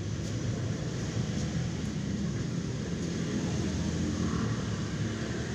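Steady low rumble of outdoor background noise, vehicle-like, with no distinct events.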